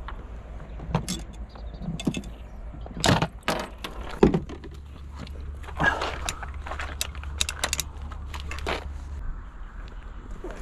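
Metallic clicks, knocks and rattles of a folding bicycle being unfolded and set up by hand, its frame and handlebar stem knocking as they are moved.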